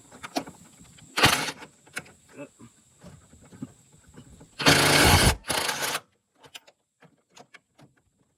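Hand tools working on a car's torque rod mount bolt: metal clicks and knocks, with two louder rasping bursts of tool action, the longest about five seconds in, as the 18 mm bolt is worked while the mount is held pried up.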